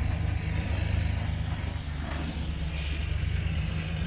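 Toyota Land Cruiser 80-series engine running at low, steady revs as the truck crawls slowly over a steep dirt slope.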